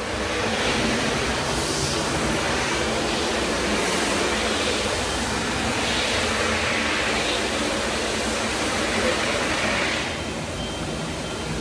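Loud, steady rushing noise of a public restroom fixture in a tiled room, starting at once and easing off about ten seconds in.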